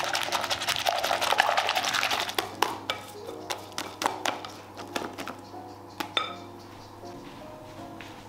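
A whisk beating cream in a glass bowl: a fast, dense rattle of strokes for about two seconds, then slower, separate taps against the bowl that stop about six seconds in. Soft background music plays throughout.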